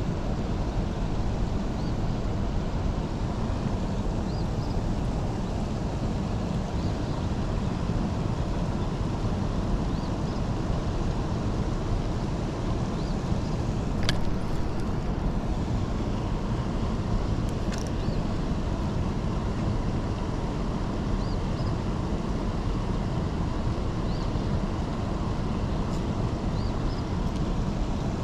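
Steady rushing roar of water pouring from the dam into the tailwater, even throughout, with a couple of sharp clicks about halfway through.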